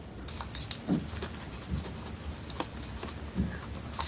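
Paper pieces being handled: irregular light rustles and clicks with a few soft taps.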